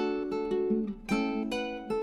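Background music: a guitar strumming chords in a relaxed, steady rhythm.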